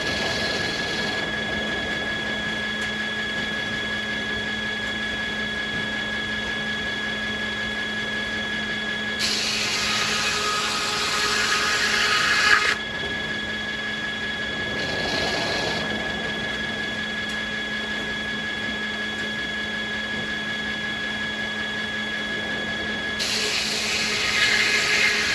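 Sawmill circular saw running with a steady whine, cutting through American beech twice: a louder, rising cut of about three seconds starting about nine seconds in that stops abruptly, and another near the end.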